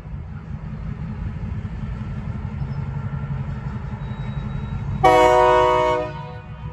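Diesel switcher locomotive running with a steady low rumble as it pulls boxcars. About five seconds in comes one loud locomotive horn blast, about a second long.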